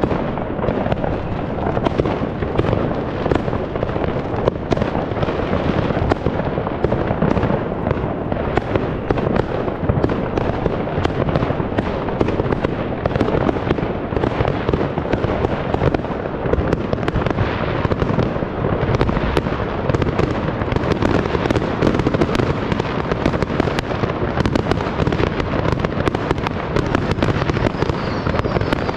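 Fireworks going off without pause: countless bangs and crackles overlap so densely that they never fall silent, at a steady loudness throughout.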